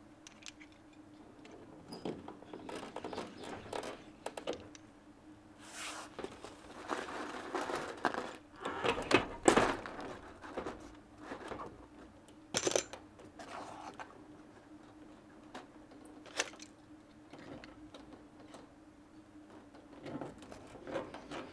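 Hands working flexible plastic radiant-floor tubing as its end is tied off and the pipe pulled: irregular rustling and scraping with a few sharp knocks, the loudest about halfway through, over a faint steady hum.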